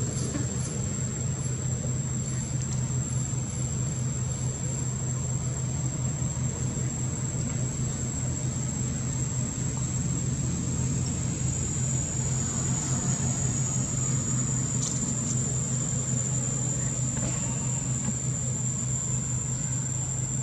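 A steady low hum runs throughout, with a thin, continuous high-pitched insect whine above it.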